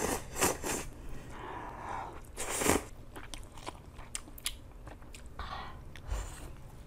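Close-miked eating sounds from a person eating noodles and broth: a few loud slurps, the loudest about two and a half seconds in, with wet chewing and lip smacks between them.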